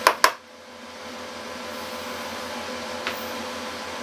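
Two sharp clicks right at the start as the solder-collection canister of a Hakko-808 desoldering gun is handled, then a steady low hum in the background with one faint click about three seconds in.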